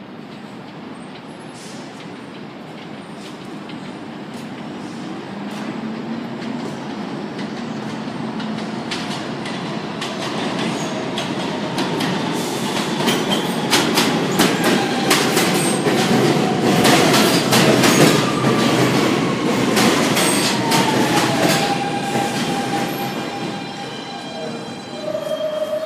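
R160 subway train approaching and pulling into an elevated station. It grows steadily louder, with its wheels clicking over the rail joints, and is loudest about two-thirds of the way in. A whine then falls in pitch as the train brakes to a stop.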